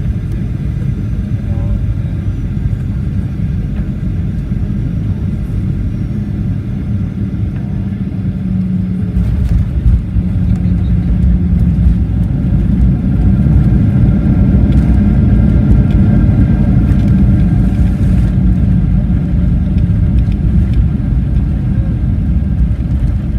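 Cabin noise inside a Boeing 737-800 as it lands: the steady rumble of its CFM56 engines and airflow, a jolt of touchdown about nine seconds in, then the engines growing louder for several seconds as reverse thrust is applied, easing again near the end.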